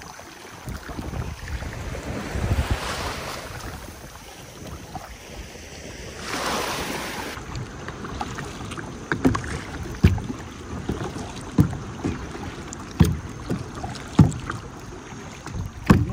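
Kayak being paddled: two swishes of water in the first half, then a run of short knocks and splashes about once a second from the paddle strokes, with wind on the microphone.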